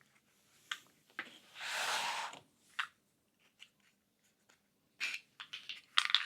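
Wooden puzzle box parts being handled: a few light clicks and taps, with one soft sliding scrape about two seconds in and more small clicks near the end.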